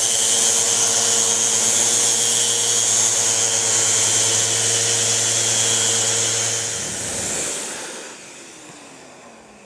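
Large 6-inch random-orbit sander running steadily as it sands a flat wooden workbench top. About seven seconds in it is switched off, and its pitch falls as it winds down.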